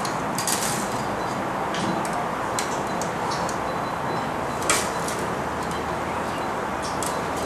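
Scattered light clicks and knocks from hands handling a tennis racquet stringing machine and its tools, the sharpest about two-thirds of the way in, over a steady background hiss.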